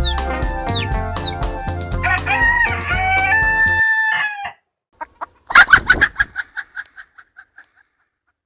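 A rooster crows over music about two seconds in, its long held last note running on after the music stops. Then comes a quick run of chicken clucks, loud at first and fading away over about two seconds.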